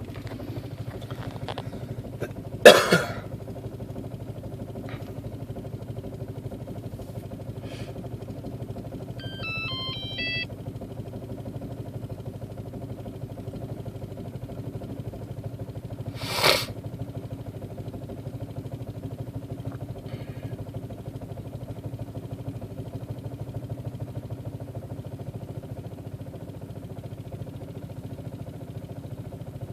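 Volkswagen/Audi 1.8T (AWW) turbocharged inline-four idling steadily, an idle that is running rough. A sharp clack about three seconds in is the loudest sound, another comes at about sixteen seconds, and a short run of beeping tones sounds near ten seconds.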